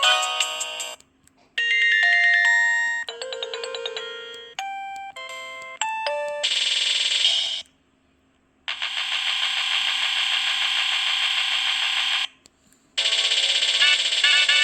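Preloaded ringtones of an LG VX4650 cell phone playing one after another. A synthesized melody ends, then come several short electronic beep-and-chime note sequences and two buzzy electronic rings with a brief silence between them, and another melodic ringtone starts near the end.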